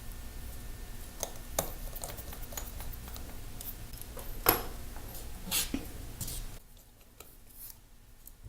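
Scattered small clicks and taps of an iPhone 6 and its new battery being handled and pressed into place, over a low steady hum that drops out about two thirds of the way through.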